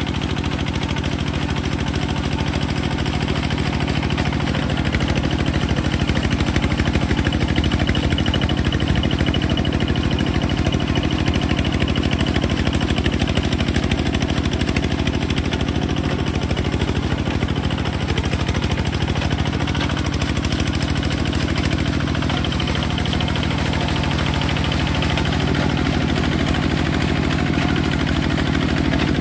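Kubota bulldozer's engine running steadily.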